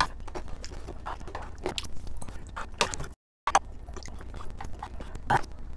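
Close-miked eating sounds: chewing of spicy soft-tofu ramen with irregular small clicks from a wooden spoon against the container. The sound drops out suddenly for a moment a little past halfway.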